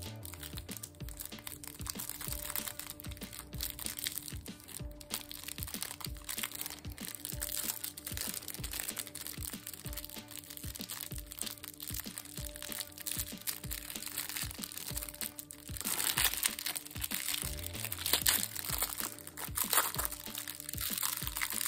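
Background music, with a clear plastic food wrapper crinkling and crackling as it is peeled off a wrapped sweet, louder over the last few seconds.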